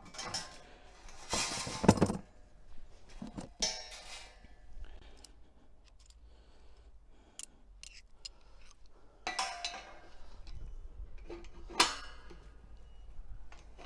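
Steel gate-hinge hardware and tools clinking and knocking as they are handled, in irregular metallic clicks with louder knocks about two seconds in and near the end.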